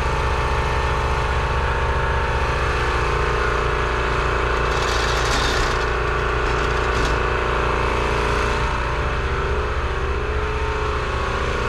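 Electric air compressor running with a steady hum and a pulsing low throb, kicked on by air being dumped from its tank. Short bursts of compressed air hiss out of the air hose about five and seven seconds in.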